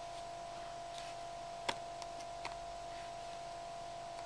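Faint light clicks of a small screwdriver and tiny screws on the metal screen plate of a disassembled iPod Touch, the sharpest a little under two seconds in, over a steady faint hum.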